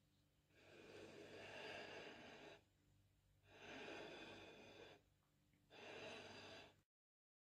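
A ceramic plate sliding and turning on a wooden tabletop: three faint scraping stretches, the first the longest.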